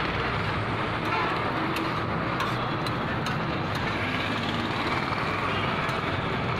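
Steady background noise with a few light clicks of a metal spatula against a large flat iron griddle as meat is stirred and pushed around on it.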